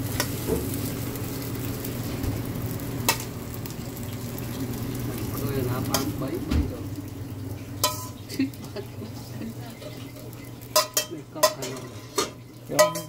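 Fried rice sizzling in a hot wok while a metal ladle scrapes and knocks against the pan, pushing the rice out onto plates. The knocks come more often in the last few seconds, over a steady low hum.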